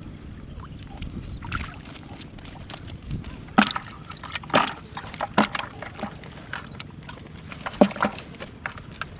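Water splashing and sloshing in irregular bursts, the loudest about a third of the way in, over a low steady rumble.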